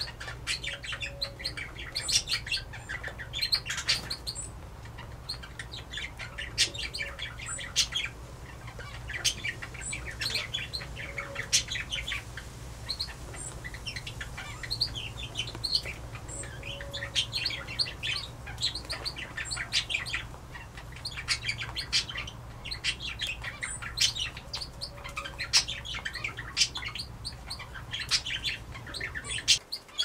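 Brown hare crunching dry seed mix, a rapid, irregular run of crisp crunches and crackles.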